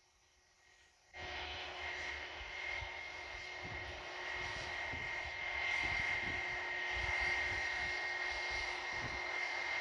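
Airbus A320 jet engines running as the airliner rolls along the runway. The sound cuts in abruptly about a second in: a steady high whine over a rushing roar, slowly growing louder, with irregular low rumbles beneath.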